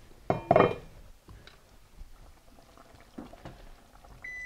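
A silicone spatula stirring thick tomato sauce in a pot, with soft wet scrapes and plops, after a short loud knock about half a second in. Near the end a kitchen timer starts a steady high beep, marking the end of the 25-minute simmer.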